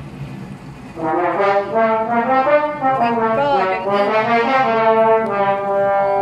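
A trombone being played. A run of notes begins about a second in, with a brief slide between pitches midway, and ends on a long held note.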